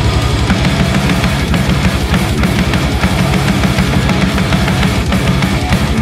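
Heavy metal band track: distorted electric guitars, bass guitar and drum kit playing at full level, driven by a fast, steady kick-drum pulse.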